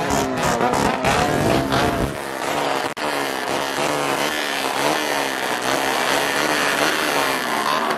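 Two-stroke motorcycle engines with racing exhausts revving hard, the pitch rising and falling over and over, with a brief break near three seconds.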